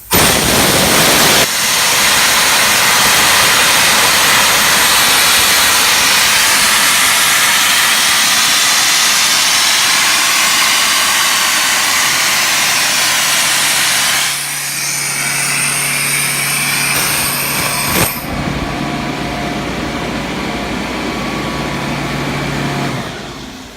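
Compressed air blasting out of the Atlas Copco rotary screw compressor's tank through an opened valve, a loud steady hiss that lets the tank pressure down. About 14 s in, the hiss eases and a steady low hum runs under it with a click partway through: the compressor coming back on as the pressure drops. Both stop together near the end.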